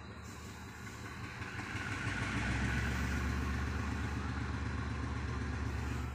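An engine running with a low rumble, growing louder about two seconds in and dropping away suddenly near the end.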